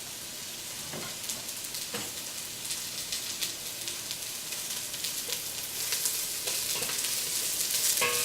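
Cremini mushrooms frying in hot cooking oil in a large pot: a steady sizzle that grows louder, with a few short knocks.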